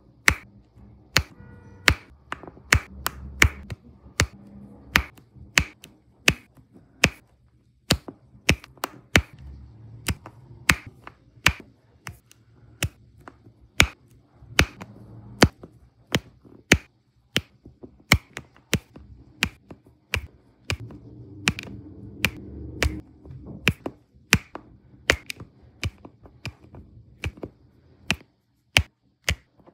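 Diamond painting pen tapping small resin drills onto the sticky canvas: crisp, sharp clicks at an uneven pace of about two a second, with a soft low handling noise under some of them.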